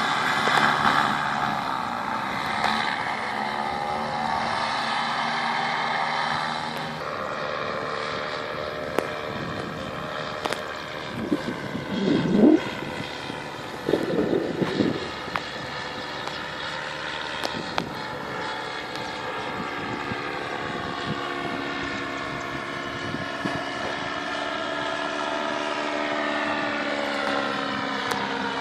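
An engine running steadily, its pitch drifting slowly up and down.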